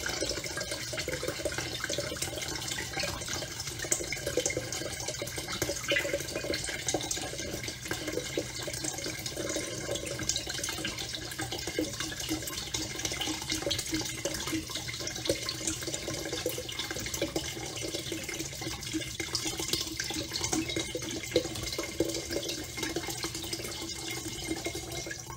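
Clear liquor poured from a large bottle into a glass drink dispenser of punch, a steady stream splashing into the liquid without a break.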